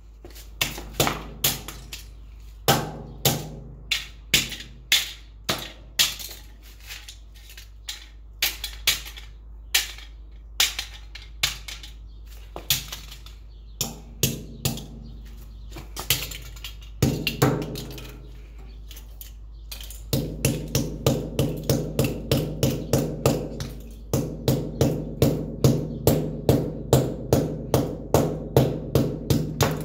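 A fire alarm being hit again and again. Sharp knocks come irregularly at first, then about two-thirds of the way in they settle into a steady run of about three blows a second, each with a low ringing tone.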